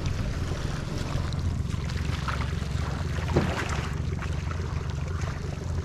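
Steady wind rumble on the microphone.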